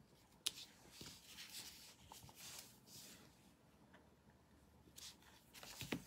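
Faint handling noises of paper and a clear acrylic stamp block on a craft mat: a small sharp click about half a second in, soft scattered rustling, then more handling near the end as the stamp is lifted off the card.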